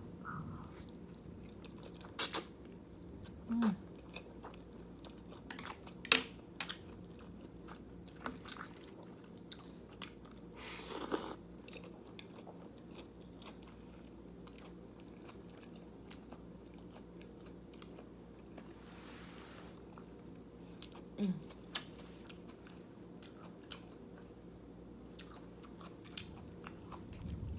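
Close-miked chewing and biting of thick jjajangmyeon noodles in black bean sauce, with scattered wet mouth clicks and smacks, the loudest and longest about eleven seconds in, over a faint steady hum.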